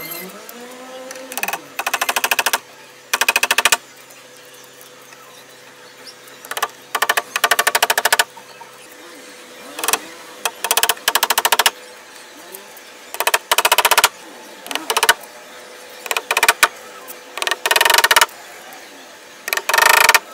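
A wooden-handled hammer driving small nails into thin wooden trellis slats: short bursts of quick, sharp taps, about twenty bursts with brief pauses between.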